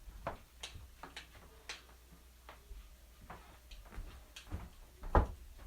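Wood fire burning in a fireplace, crackling with irregular sharp snaps and pops, the loudest pop about five seconds in.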